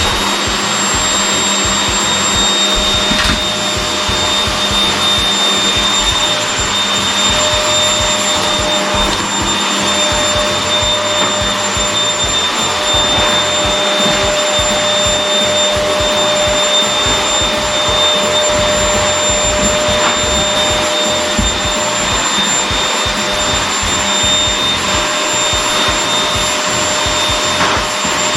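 Vacuum cleaner running steadily: a constant motor whine over a loud rush of air.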